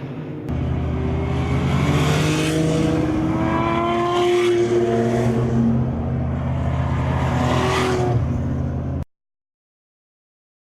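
BMW 325i E30's 2.5-litre straight-six under hard acceleration, its engine note climbing steadily in pitch. It cuts off suddenly about nine seconds in.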